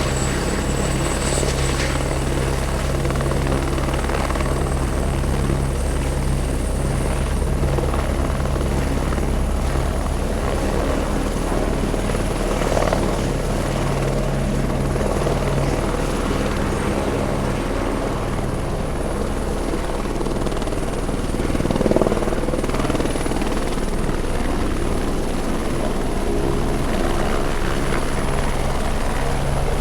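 Helicopter running steadily, its rotor beating fast and evenly, with a steady high whine over it and a brief swell in loudness about two-thirds of the way in.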